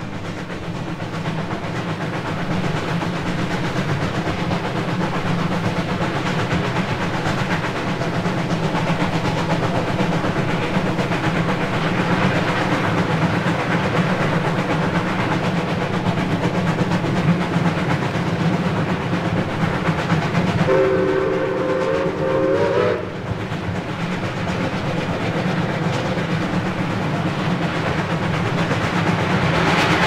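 Coal-fired 4-8-4 steam locomotive No. 2101 of the Chessie Steam Special running on the main line, a steady rumble that grows louder over the first few seconds. A little over twenty seconds in, its steam whistle sounds once for about two seconds.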